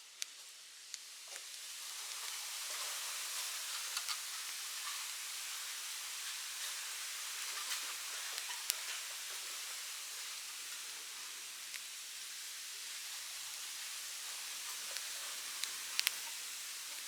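Open bonfire burning with a steady hissing sizzle that swells over the first two seconds, and sharp crackling pops scattered through it, a few close together near the end.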